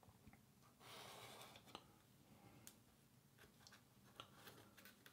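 Faint handling sounds of a paper pattern being marked: a ballpoint pen scratching on paper for about a second, then a few light clicks and taps of the pen, knife and ruler on the paper and mat.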